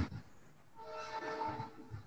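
A faint horn-like tone sounding several pitches at once, held steady for about a second from about a second in.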